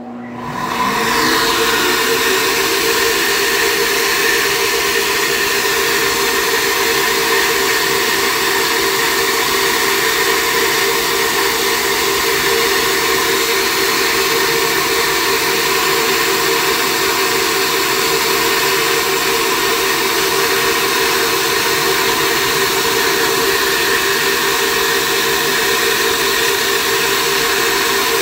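Cylinder-head flow bench starting up, its motors spinning up with a rising whine over about a second. It then runs steadily with a loud rush of air drawn through a ported LS1 intake port, flowing around 338 CFM.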